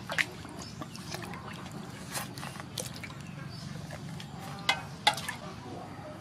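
Water splashing and dripping in a metal basin as a large squid is rubbed and lifted by hand, with several short sharp splashes, the loudest pair near the end, over a steady low background hum.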